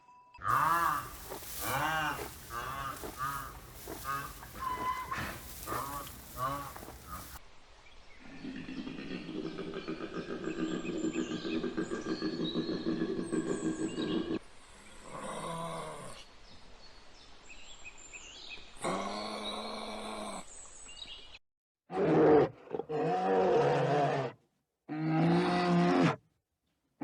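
Animal calls in several separate cuts. First comes a run of short calls that rise and fall, about one a second. Then there is a long, steady low call, and last some shorter calls with sudden silences between them.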